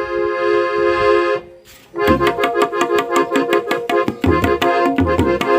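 Harmonium holding a sustained chord. After a short pause about a second and a half in, the tabla enters with quick, even strokes under the harmonium melody, with deep bass-drum strokes now and then.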